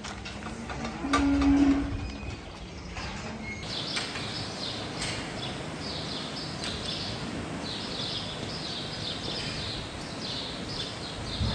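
Small birds chirping busily in a dairy cow barn, quick chirps repeating over steady barn background noise. About a second in there is a brief loud low tone, the loudest thing here.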